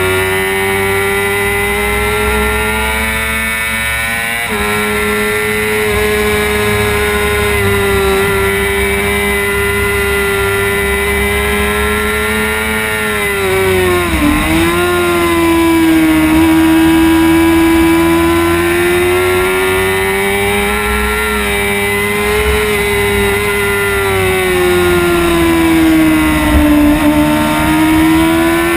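Onboard sound of a Suzuki GSX-R600 inline-four sportbike engine at racing speed, held at high revs with a strong steady note. Its pitch steps up a few seconds in, dips sharply and climbs straight back about halfway through as the throttle is rolled off and reopened, and sags and rises again near the end, over a low rumble of wind on the camera microphone.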